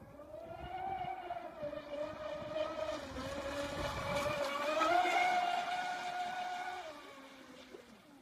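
Twin 1200 kV brushless electric motors of a large MHZ CT03 radio-controlled speedboat whining at speed. The pitch rises and dips; the sound is loudest about five seconds in, then drops in pitch near seven seconds and fades.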